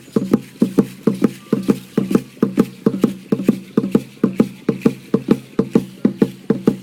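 A deep drum beaten in a fast, steady rhythm of about four beats a second, the accompaniment to a pre-Hispanic dance.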